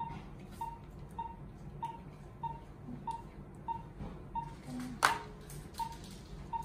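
Patient monitor's pulse oximeter beeping with each heartbeat, a short steady tone about one and a half times a second. A single sharp crackle like plastic drape or packaging comes about five seconds in.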